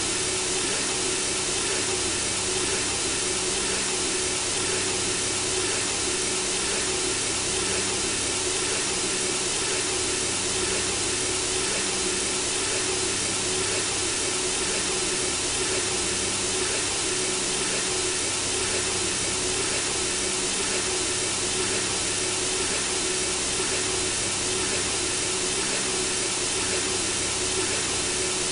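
Synthesizer-generated white noise, meant to mimic the sound of blood circulating in the womb for lulling a baby: a steady, unchanging hiss with a faint steady tone running underneath.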